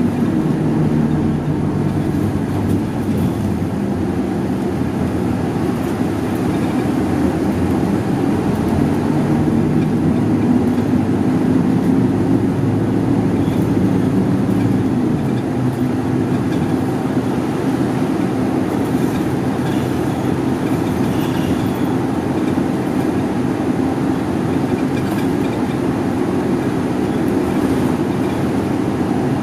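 Inside a moving route bus: the steady drone of the engine and drivetrain with road and tyre noise, holding an even level.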